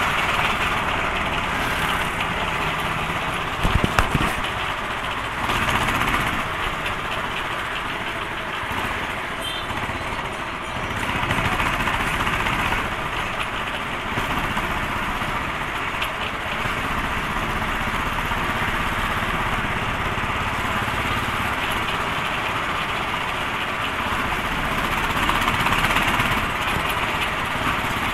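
Royal Enfield Thunderbird's single-cylinder engine running steadily as the motorcycle cruises along a road. A short cluster of sharp knocks comes about four seconds in.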